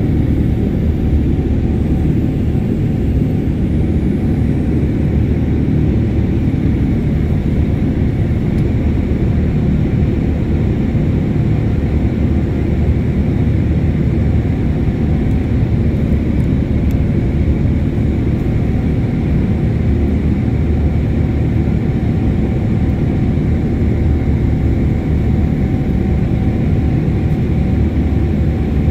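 Steady in-flight cabin noise of a Boeing 787-8 Dreamliner, heard from inside the cabin by a window next to the engine: an even, deep rush of engine and airflow that does not change.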